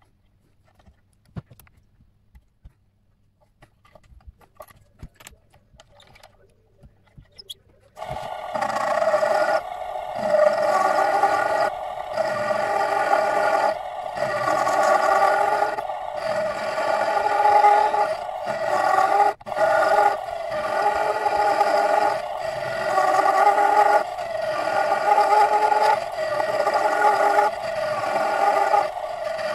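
A few faint clicks and taps, then a mini-lathe motor starts suddenly and runs with a steady whine, its sound swelling and dipping about every two seconds.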